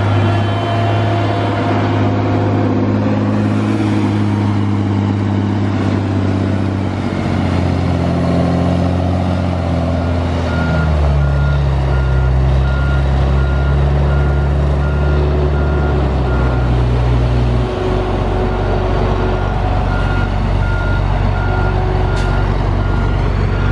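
Heavy diesel engines of a grapple skidder and a loaded log truck working under load as the skidder drags the truck through mud. The engine note falls over the first ten seconds, then holds steady with a shift about eighteen seconds in. A backup alarm beeps about once a second from about ten seconds in.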